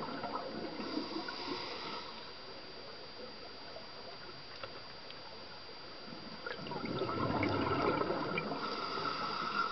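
Scuba regulator exhaust bubbles gurgling underwater as a diver breathes out: one burst of bubbling dies away about two seconds in, and after a quieter stretch another begins about six and a half seconds in. A faint steady high tone runs under it.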